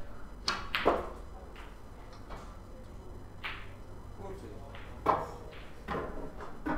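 Snooker balls clicking: the cue ball strikes a red and the red drops into a corner pocket, followed by further sharp knocks of the balls and cue over the next seconds.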